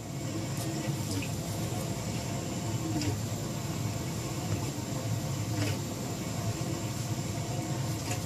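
Steady low background hum and hiss with a few faint clicks; no loud event stands out.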